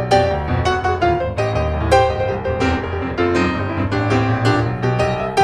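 Background music: a piano melody of quick, evenly paced notes over a sustained bass line.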